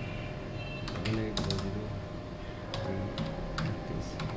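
Typing on a computer keyboard: a few short clusters of key clicks, about a second in, near three seconds and near the end.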